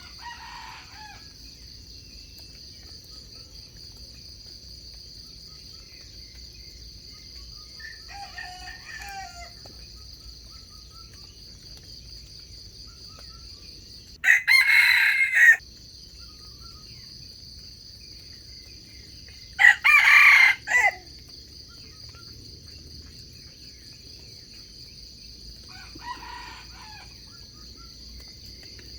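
Wild junglefowl roosters crowing: two loud, close crows, one about halfway through and another some five seconds later, answered by fainter, more distant crows near the start, around a third of the way in and near the end. A steady high-pitched insect drone runs underneath.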